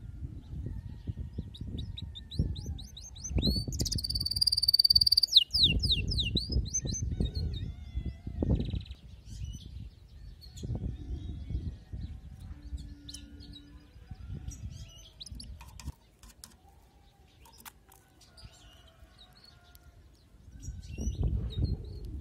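Canary singing: one loud burst of rapid, high, sweeping trills about four seconds in, then scattered faint chirps. Low gusty rumble of wind on the microphone underneath, dying away for a few seconds near the end.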